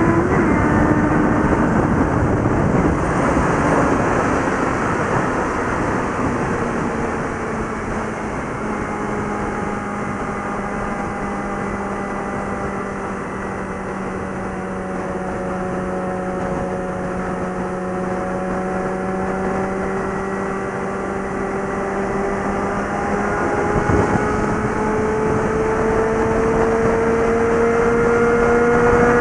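Suzuki GSX650F inline-four engine and exhaust running at highway speed, the revs holding fairly steady, sagging slightly in the middle and climbing over the last several seconds. Steady wind and road noise lies underneath.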